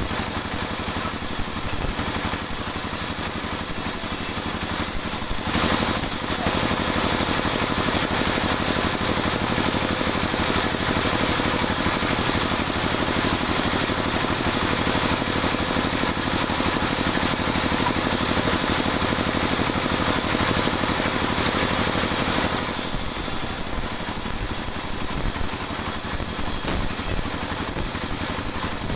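Band sawmill running steadily. From about five seconds in to about twenty-two seconds its blade is cutting through dry teak, adding a louder, denser sawing noise, after which it runs free again.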